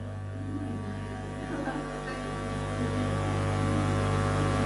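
Soft background music of sustained keyboard chords that slowly swell, over a low steady hum.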